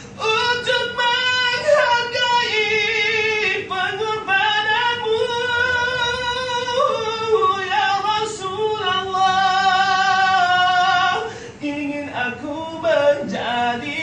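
Unaccompanied male voice singing a nasyid in a high register, drawing out long notes that wind up and down with no clear words. Near the end the voice drops lower and the phrases break up.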